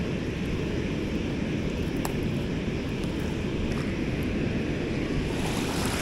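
Steady rush of water pouring over a dam spillway and churning in the pool below.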